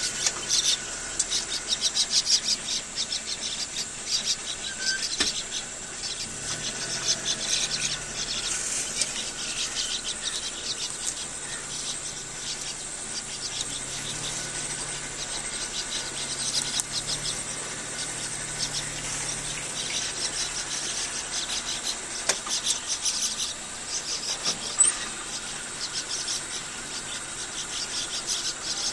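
Insects chirring: a steady, high-pitched trill with fast pulsing that goes on without a break.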